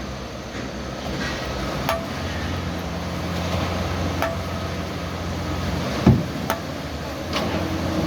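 Hitachi excavator's diesel engine running steadily, with a sharp metallic clink about every two seconds and one heavy thump about six seconds in.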